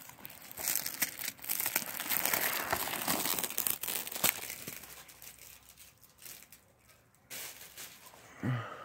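Plastic wrapping crinkling and tearing as a Blu-ray case is unwrapped and opened, with a few clicks, loudest in the first half and dying down to quieter rustles.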